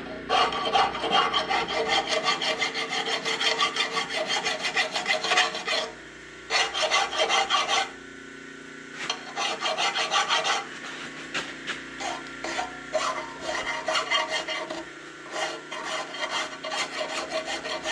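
Hand file rasping across the edges of a freshly milled steel plate in quick back-and-forth strokes, deburring it, with two short pauses. A steady low hum runs underneath.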